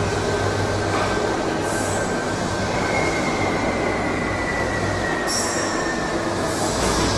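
Subway train running on the rails, a steady rumble with wheels squealing in long high tones, one of which slowly falls in pitch.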